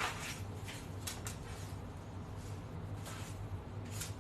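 A few faint light knocks and clicks over a low steady hum.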